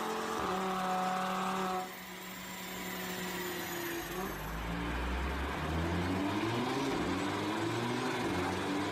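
Audi RS3's 2.5-litre turbocharged five-cylinder engine running on a chassis dyno: held at steady revs, then lifted off sharply about two seconds in, and building revs again with an unsteady rise in the second half.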